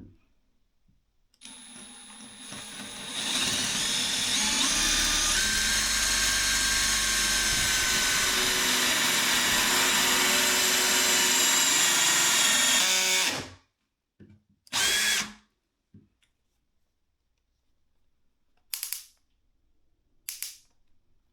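Cordless drill driver, likely the HiKOKI 18V DS18DD, running under load with a steady whine for about ten seconds, speeding up near the start and stopping suddenly. Three short bursts follow near the end.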